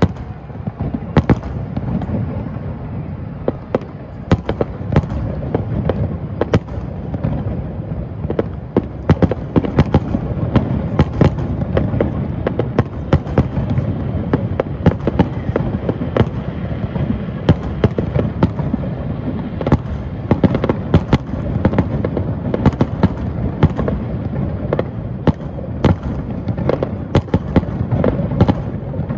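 Aerial fireworks display going off continuously: a rapid, irregular stream of sharp cracks and bangs, several a second, over an unbroken low rumble of distant bursts.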